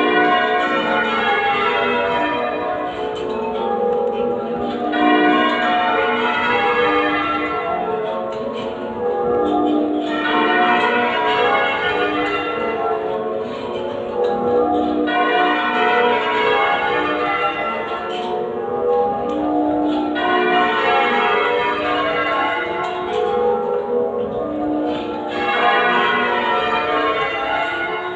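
Ring of eight church bells cast by Mears & Stainbank, tuned to F sharp, being change-rung half-muffled in a steady stream of strikes. The tone brightens and dulls in turn every few seconds.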